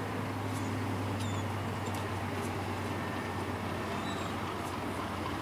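Diesel locomotives approaching at a distance, their engines a low steady hum, with a few faint bird chirps above it.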